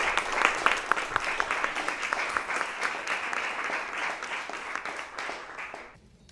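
Applause: many hands clapping, slowly fading and then cutting off sharply about six seconds in.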